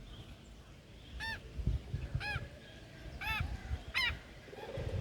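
Waterfowl honking: four short, nasal honks about a second apart, each call rising and falling in pitch.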